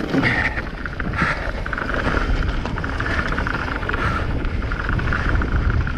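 Mountain bike descending fast over rough ground: wind rushing on the microphone, a low rumble from the tyres and a constant rattle of the bike.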